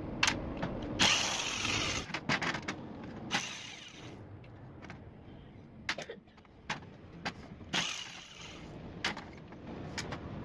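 Metal parts of a truck brake pedal valve being handled and taken apart on a metal work tray: scattered clinks and knocks of bolts and housing pieces, with two longer rattling noises about one second in and about eight seconds in.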